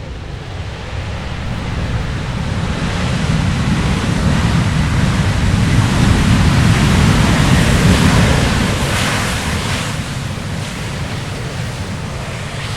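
Jet aircraft taking off, its engine roar a dense rushing rumble that builds steadily, peaks about two-thirds of the way through, then fades as it passes and climbs away.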